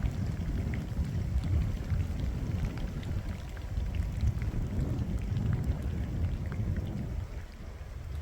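Wind gusting over the microphone in an uneven low rumble that eases near the end, with light scattered ticking from wind-driven snow and ice pellets.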